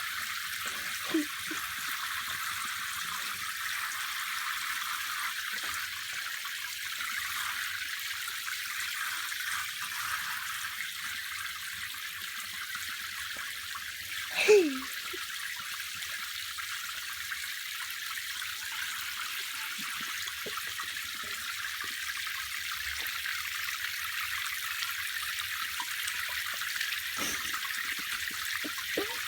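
Tap water running into a bathtub with a steady hiss. About halfway through comes one short call falling in pitch, and there is a small click about a second in.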